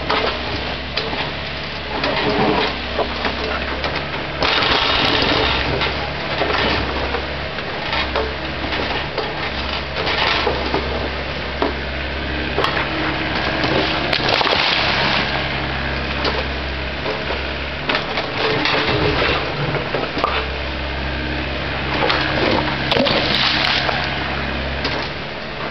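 Volvo ECR88 compact excavator working rubble: its diesel engine runs steadily while the bucket scrapes, knocks and crunches against broken concrete and brick. Louder passages of scraping and grinding come every four to five seconds.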